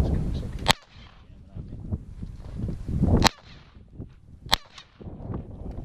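Three sharp gunshots from a small-calibre target gun: one about a second in, one at about three seconds, and one a little over a second later.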